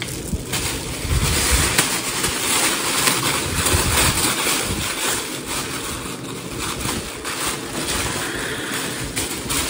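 Thin tissue wrapping paper rustling and crinkling as it is handled and pulled open close to the microphone, a dense continuous crackle.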